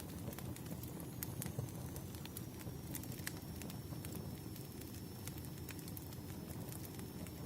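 Wood fire crackling, with irregular sharp pops over a steady low rumble of burning logs.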